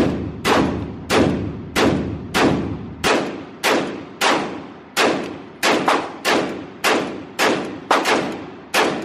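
Firearm shots fired in a steady string, about fifteen at roughly two a second, each followed by a long echo off the walls of the indoor range.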